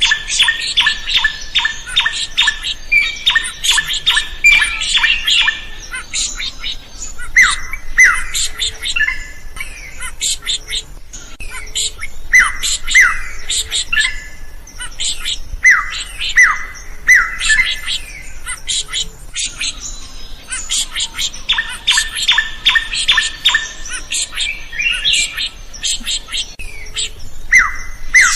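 A drongo (srigunting) singing loudly. Fast, harsh chattering runs alternate with short, downward-slurred whistles repeated in pairs.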